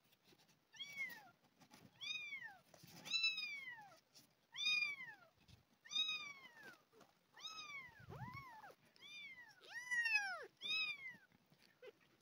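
Two young kittens, about two and a half weeks old, mewing repeatedly: about ten high, thin calls in a dozen seconds, each rising then falling in pitch, sometimes two at once.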